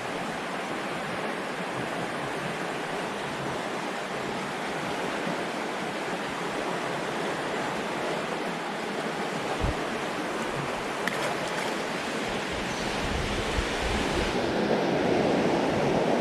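Fast current of a flooded creek rushing over rocks: a steady rush of water, growing a little louder toward the end, with wind rumbling on the microphone in the last few seconds.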